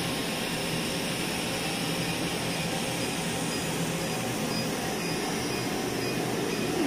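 Cynosure Elite laser hair-removal machine running during treatment: a steady rushing noise with a low hum under it.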